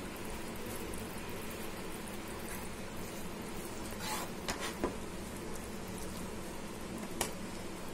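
Fried boondi simmering in sugar syrup over a low flame: a steady low sizzle, with a few light clicks of a steel spoon stirring against the pan about four to five seconds in and again near the end.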